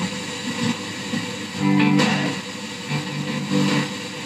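Guitar music from an FM station playing through the small speaker of a 1961 Philips B3X02A valve radio, tuned right on the channel: the FM section works after the repair.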